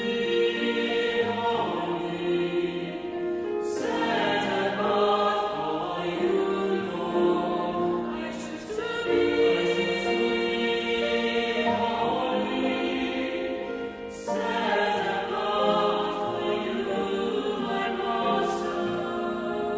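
A choir singing a worship song, in long held phrases with short breaks about every four to five seconds.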